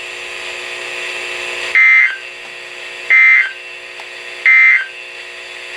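Three short data bursts of the Specific Area Message Encoding (SAME) system from NOAA Weather Radio, each a fraction of a second of harsh two-tone digital warble, about a second apart. This is the end-of-message code closing an emergency alert. A steady hum from the radio runs beneath them.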